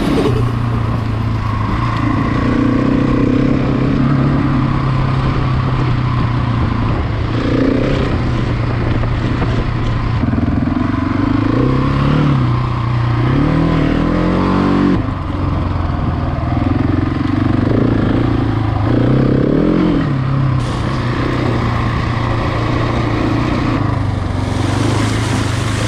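Off-road motorcycle engine running under the rider, with steady wind and road noise. The engine holds a steady note, and twice the revs rise and fall as the throttle is worked. The sound changes abruptly a few times.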